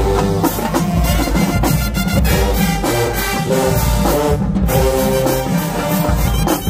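HBCU marching band playing: the drumline's snare drums beating out a driving rhythm under sousaphones and horns playing a tune.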